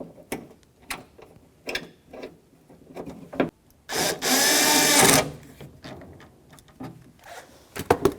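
A cordless drill/driver with a T30 Torx bit spins for about a second, about four seconds in, running in the door latch screws. Light clicks and knocks of parts being handled come before and after.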